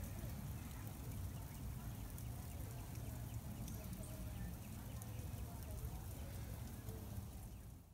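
Outdoor ambience during a snowfall: a steady low rumble with faint scattered ticks, fading out near the end.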